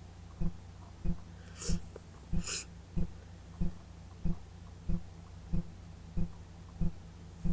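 A person with a head cold takes two short, sharp sniffing breaths through the nose, about a second apart, near the start. Underneath, a low steady hum and a regular low thump about one and a half times a second continue throughout.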